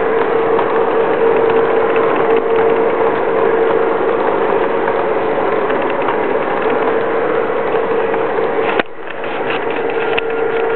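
Lionel Legacy New York Central F7 passenger train rolling past on three-rail O-gauge track: a steady mechanical clatter of wheels and gearing with a steady whine. A sharp click comes near the end, after which the sound is quieter.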